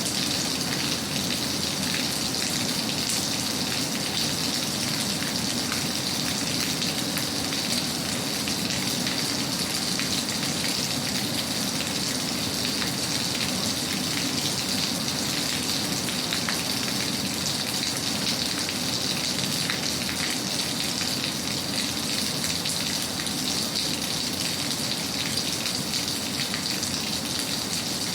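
Steady rain falling, a dense even hiss of many small drop ticks that does not change.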